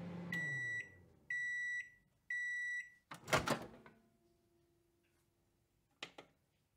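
Microwave oven finishing its cycle: the running hum winds down, three long beeps sound about a second apart, then the door pops open with a clunk a little over three seconds in. Two short clicks follow near the end.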